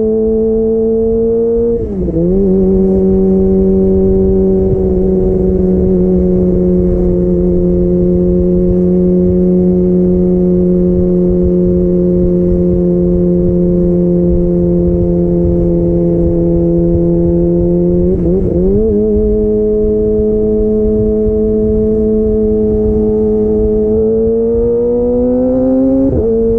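2022 Kawasaki ZX-25R's 249 cc inline-four running through a DX Generation Pro Race exhaust with the dB killer out, heard from on the bike while riding. About two seconds in, a quick gear change drops the engine note to a steady cruise, and the note shifts again around eighteen seconds. Near the end the revs climb, jumping up just before the close.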